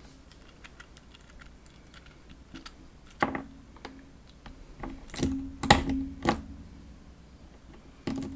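Sharp metallic clicks and knocks as the parts of a disassembled PacLock padlock are handled. Faint small ticks come first, then about five louder strikes from about three seconds in, each leaving a short low ring.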